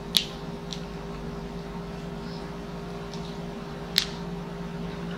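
A crisp lettuce leaf crackles sharply twice as it is folded into a wrap by hand, once right at the start and again about four seconds in, with a few fainter crinkles between. A steady low hum runs underneath.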